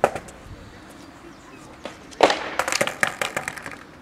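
Skateboard and footsteps on stone steps: a sharp knock at the start, then about two seconds in a loud clatter as the board is put down, followed by a run of quick knocks and clicks lasting about a second.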